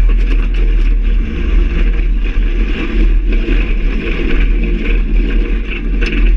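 XCitor paramotor trike rolling over rough grass during the landing rollout: its engine runs low under a heavy rumble of wind on the microphone, with rattles and knocks from the wheels and frame jolting over bumpy ground.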